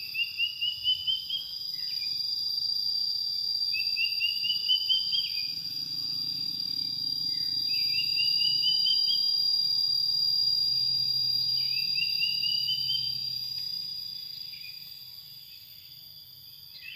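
Mountain forest ambience: insects keep up a steady high-pitched shrill. Over it, a call repeats about every four seconds, each a quick run of notes climbing in pitch.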